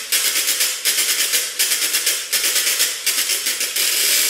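Kolberg Raganella ritmica, a wooden crank ratchet that turns both ways, cranked back and forth to play rhythmically. Its rattle comes in five even bursts of rapid clicking, then runs on unbroken near the end.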